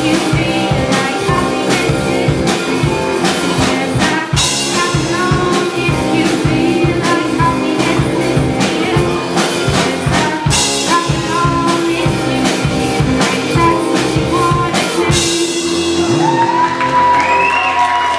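Live band with drum kit, several singers, electric guitar and keyboard playing a pop song, with crash cymbal hits. The song ends about three seconds before the end on a final crash, followed by whoops and applause beginning.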